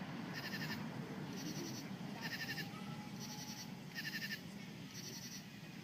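Night insects calling in short high-pitched pulsed chirps, repeating about once a second, over a faint low background hum.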